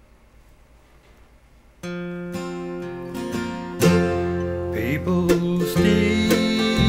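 Background music: after a faint hiss, acoustic guitar strumming starts suddenly about two seconds in, and the music grows fuller and louder about two seconds later.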